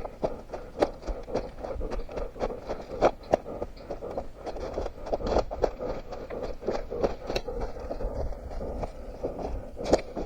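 Running footsteps of an orienteer on the forest floor, heard from a head-mounted camera: irregular crunches and scrapes of feet on leaves, twigs and soil, with rustling of clothing and gear.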